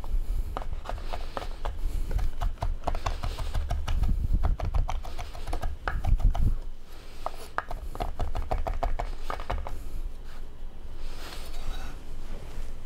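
Chef's knife rapidly chopping fresh dill on a wooden cutting board: a fast, uneven run of light knocks as the blade strikes the wood.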